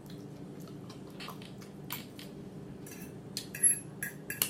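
Eating sounds: a fork tapping and clinking against a plate, with scattered soft clicks and a few sharper clinks from about three and a half seconds in.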